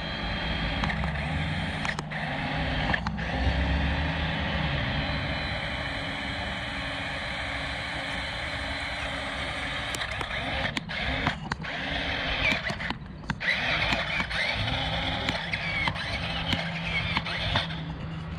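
A motor running steadily under a continuous hiss while mud is cleaned off a small RC truck, with a few brief breaks and light knocks in the second half.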